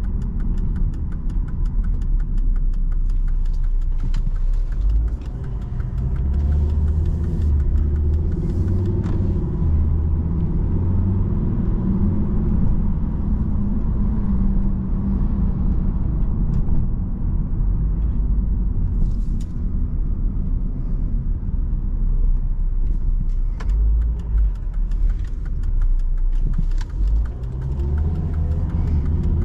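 Volvo S60 being driven, heard from inside the cabin: a steady low rumble of engine and tyre noise on the road.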